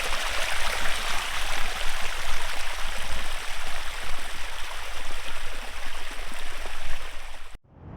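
Steady rush of water from a waterfall's hill stream, which cuts off suddenly near the end and gives way to a brief whoosh.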